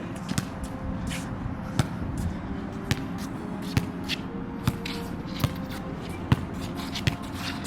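Wet basketball being dribbled on an outdoor court: about eight sharp bounces, spaced roughly a second apart and coming a little quicker toward the end.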